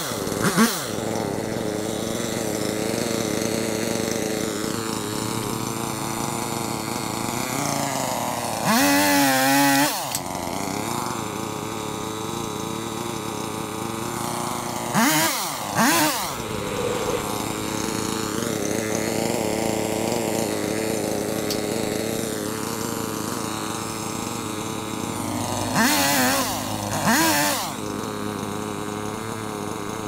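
Petrol chainsaw idling steadily, revved up five times in short bursts (once about a third of the way in, twice around the middle, twice near the end) as it cuts branches from a tree.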